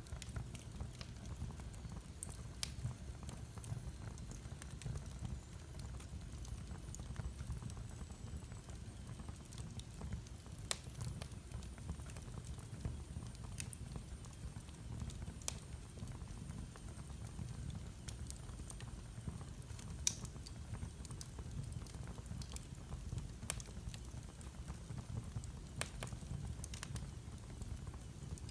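Wood fire burning in a fireplace: a steady low rumble with sparse sharp crackles and pops, a few seconds apart.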